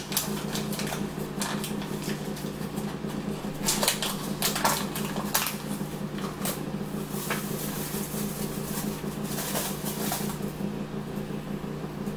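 Crinkling and crackling of a Jiffy corn muffin mix box and its inner paper pouch being torn open and handled, in irregular bursts, over a steady low hum.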